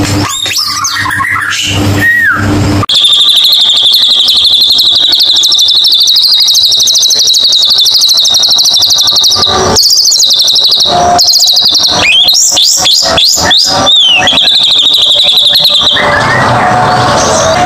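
White-rumped shama (murai batu) song: a long, fast, buzzing trill held for several seconds, then a quick run of rising and falling whistles and another trill. It is a lure song meant to set a silent shama singing.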